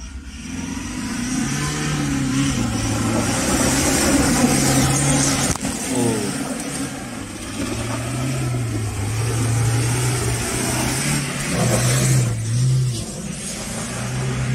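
Toyota Hilux pickup's engine revving up and down again and again while the truck spins donuts, over the steady noise of its tyres tearing through grass and dirt.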